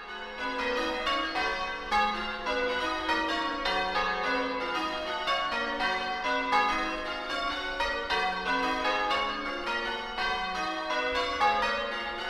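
Church bells ringing changes: a quick, even run of strikes, one bell after another, the notes overlapping as they ring on.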